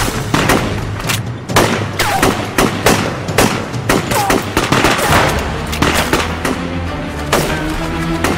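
Gunfight sound effects: irregular rifle and pistol shots, some close together, each with a ringing tail. Dramatic score runs underneath. The shots thin out in the last couple of seconds while the music carries on.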